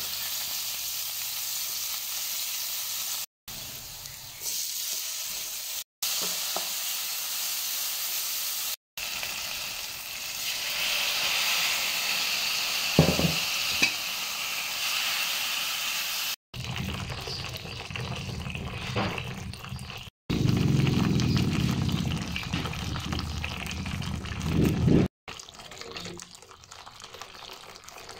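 Garlic and onion sizzling in hot oil in an aluminium pan, stirred and scraped with a wooden spoon, over several short cuts. From about halfway, the sound turns lower and fuller as the pan holds vegetables and then broth simmering.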